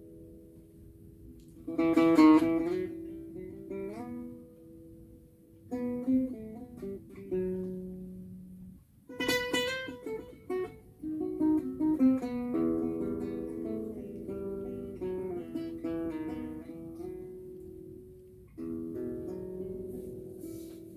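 Two acoustic guitars playing an unaccompanied song introduction: ringing chords and picked melody notes, with sharp strummed chords about two seconds in and again about nine seconds in.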